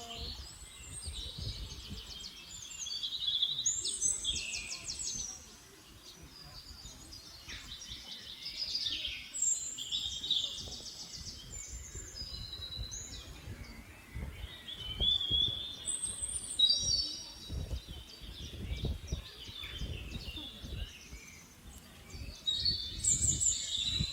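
Small songbirds chirping and trilling in quick, overlapping high phrases, with a low rumble underneath.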